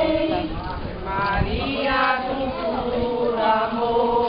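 Several voices of a procession singing a religious hymn together in long, slowly moving held notes.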